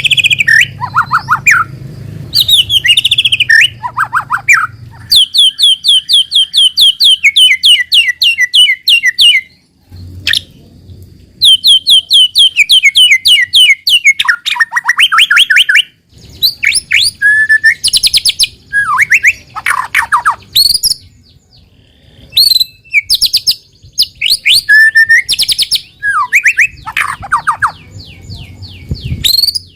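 White-rumped shama singing a loud, varied song of whistled phrases and long rapid trills, pausing briefly about a third and halfway through. A faint low hum comes and goes underneath.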